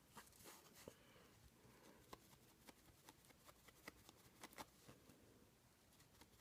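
Near silence with faint, irregular soft taps of a sponge brush dabbing paint onto a foam shape.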